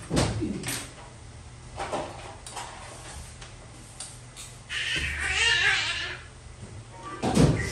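Knocks and handling sounds of 3D-printer parts and packaging being unpacked, with a squeaky scraping stretch about five seconds in that lasts a second or so.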